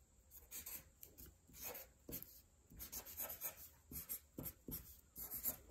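Felt-tip marker writing large letters on paper: a quick series of short, separate scratchy strokes, about two or three a second.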